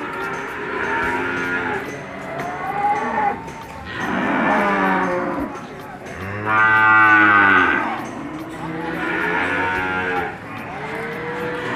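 Several cattle mooing, their calls overlapping one after another. The loudest is a long, deep moo about six seconds in.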